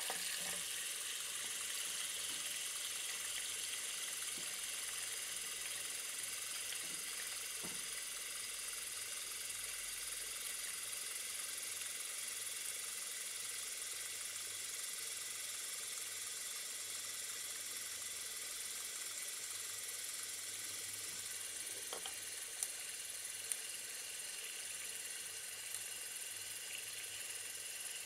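Bathroom tap running into a sink that is filling with water: a steady hiss of pouring water.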